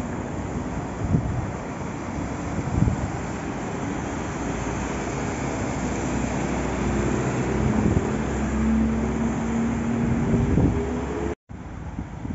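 Traffic on a flooded street: vehicles driving through standing water with a steady hiss, and wind buffeting the microphone in a few thumps. A vehicle's engine hum builds in the second half, and the sound cuts out for an instant near the end.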